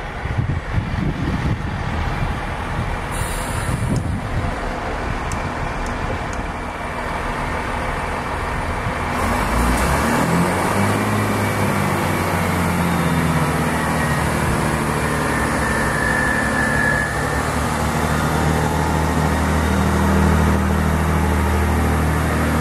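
Chiltern Railways Class 165 diesel multiple unit moving off along the platform, its underfloor diesel engines running under power. A rough rumble settles, about ten seconds in, into a steady, deeper engine drone that grows slightly louder as the carriages roll past.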